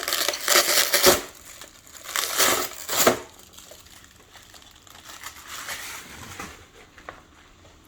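Plastic packaging wrap crinkling and rustling as it is pulled off, in several loud bursts over the first three seconds, then quieter rustling.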